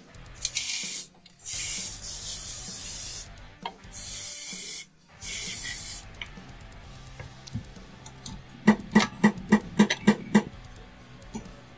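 Three bursts of spray from an aerosol can, each one to two seconds long. Near the end comes a quick run of about eight ringing hammer blows on a steel socket, driving a suspension bushing into its bore in a knuckle held in a vise.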